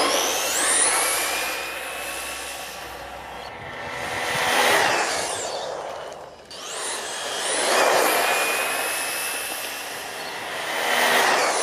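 Brushless-motor RC buggy on a 3S LiPo launching hard, its high-pitched electric motor whine climbing steeply in pitch. It then makes high-speed runs along the road, the whine and tyre noise swelling and fading several times as it comes and goes.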